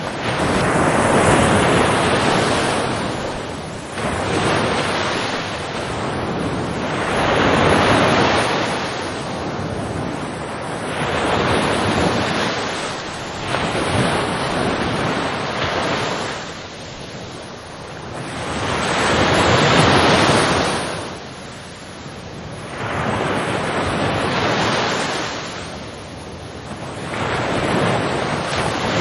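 Ocean waves breaking and washing on a shore, each surge swelling and falling away every three to four seconds in a steady rhythm.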